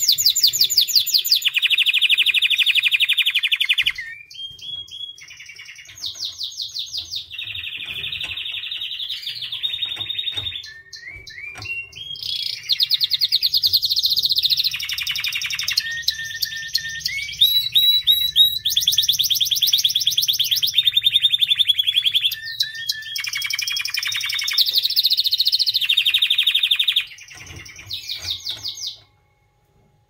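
A white domestic canary singing: a long run of fast trills and rolls, one phrase after another, with short gliding whistled notes between the phrases. The song stops near the end.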